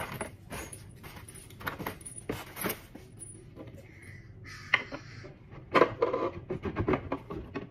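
Irregular light clicks, clinks and knocks of small hard objects being handled and set down during furniture assembly, with a brief rustle about four and a half seconds in and the loudest knock about six seconds in.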